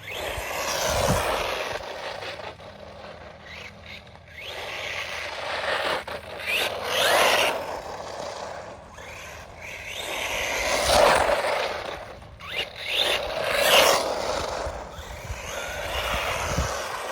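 Brushless RC truggy being driven, its tyres and drivetrain making a scraping noise that swells and fades four times as it passes close.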